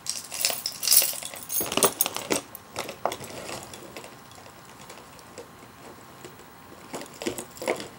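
A cardboard toy box being opened by hand: scattered scrapes, clicks and rustles of the flaps and packaging. It goes quieter for a few seconds in the middle, then the handling noises pick up again near the end.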